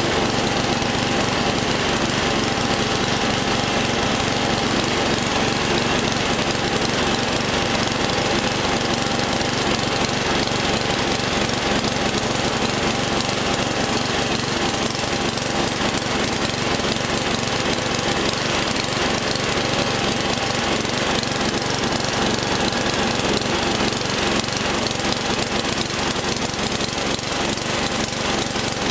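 Craftsman LT11/36 lawn tractor's 11 hp engine running steadily as the tractor drives along, heard from on board the machine. The owner says the engine still needs a little tuning up.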